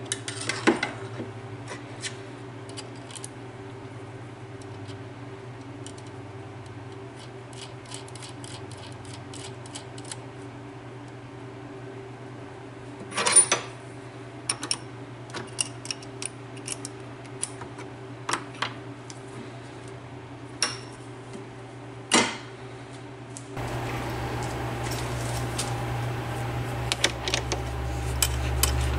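Scattered light metallic clicks and clinks of steel lathe parts being handled and fitted: a threaded drawbar slid through the lathe's headstock spindle and a collet set on its nose. A few louder knocks stand out, one about a second in, one midway and one later, over a steady low hum that grows louder near the end.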